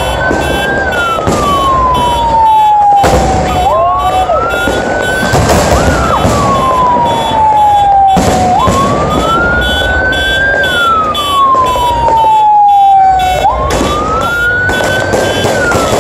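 Fireworks banging and crackling overhead, while a siren wails in a slow repeating cycle: each cycle jumps up, climbs, then glides down, about every five seconds.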